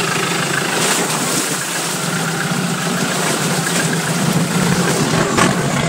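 A motor running steadily under an even rushing noise.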